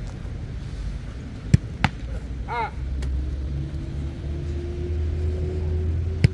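Two pairs of sharp ball thuds, a football struck and then caught in goalkeeper gloves, about a second and a half in and again near the end. A low vehicle rumble runs under the middle part.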